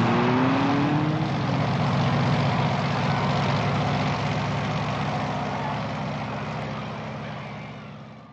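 A loud engine-like drone that rises in pitch during the first second or so, then holds steady and fades away near the end.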